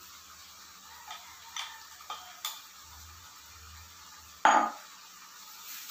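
Utensils and a container clicking lightly against a frying pan several times, then one louder clatter about four and a half seconds in, over a faint sizzle from the pan.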